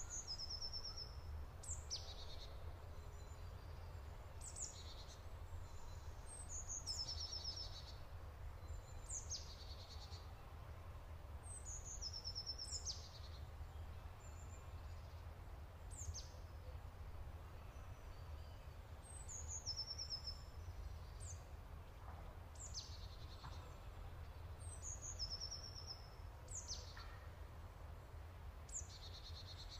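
Asian fairy-bluebird calling: a sharp, high note sweeping steeply down, often followed by a quick run of shorter high notes, repeated every two to three seconds over a low steady rumble.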